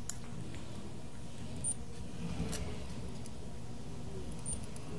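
Steady low hum of workbench equipment with a few light clicks and taps of tools being handled, as a soldering iron is brought to a circuit board.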